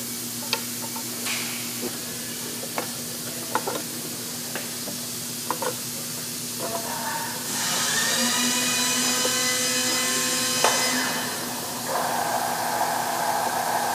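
Scattered light metallic clinks of hand tools on a C-130J propeller hub, over a steady hiss. About halfway through, a loud, high mechanical whine starts and runs for about three seconds, and a lower steady machine noise follows near the end.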